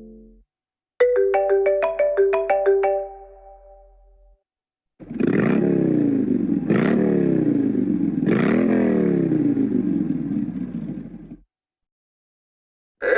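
iPhone ringtones played one after another. First comes a short melody of quick plucked notes lasting about two seconds. After a pause comes a ringtone of a revving engine, its pitch rising and falling in repeated sweeps for about six seconds before it cuts off.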